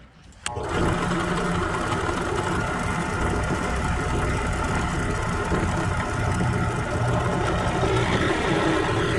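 Benchtop drill press switched on with a click about half a second in, its motor then running steadily as a Forstner bit bores into a PVC pipe.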